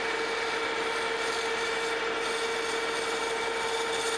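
Metal lathe taking a facing cut across the end of a bronze bushing blank: a steady cutting hiss with a steady tone running through it.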